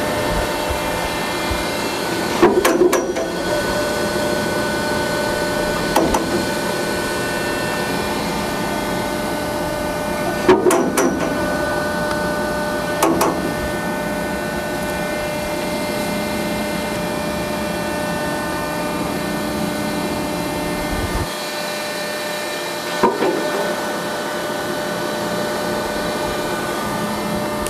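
Al-Jon Model 550 stationary baler's hydraulic power unit running with a steady hum and whine while the ram cycles, with a few sharp clunks spaced several seconds apart. The deepest part of the hum drops away about three quarters of the way through.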